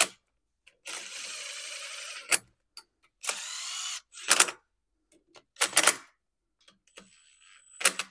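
Cordless drill running head bolts gently into a Kohler Command engine's cylinder head in two short runs, the first longer, followed by several sharp clacks of metal being handled.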